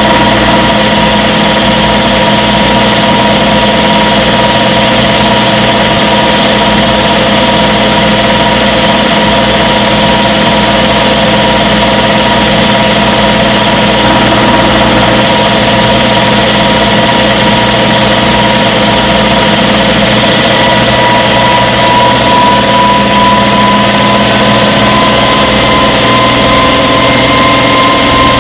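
Front-load washing machine running, a steady motor whine over a low hum, the whine rising slightly in pitch from about two-thirds of the way through.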